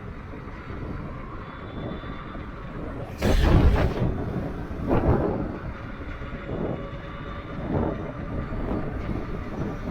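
Strong wind buffeting the microphone of a fast-moving e-bike: a steady low rumble with a loud gust about three seconds in and smaller gusts after it.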